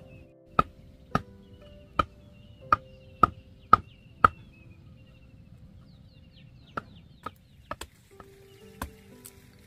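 A chunk of wood used as a mallet striking bamboo stakes to drive them into the ground: sharp knocks about twice a second for the first four seconds, then, after a pause, lighter and more irregular knocks.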